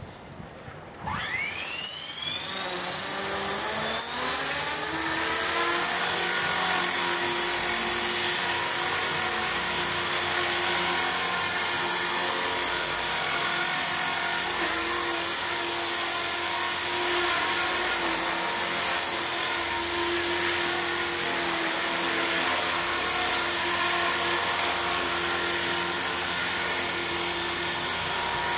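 T-Rex 450 electric RC helicopter spooling up. About a second in, the whine of its motor and gears rises in pitch over several seconds, then holds steady as the rotor runs at speed. Its main rotor blades are out of track.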